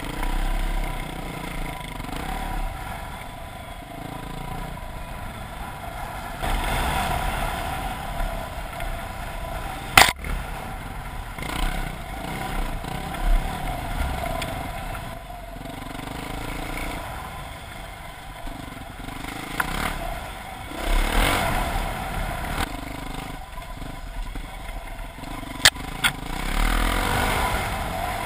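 Dirt bike engine running, its speed rising and falling as the bike rides over a rough dirt trail, heard on board from a helmet camera along with the clatter of the bike over the bumps. A sharp knock about ten seconds in and another near the end.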